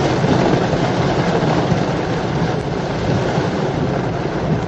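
Heavy wind-driven rain on a moving Toyota Fortuner 2.8, heard inside the cabin: a steady, dense rush of rain on the body and windscreen over tyre and engine noise on the wet road.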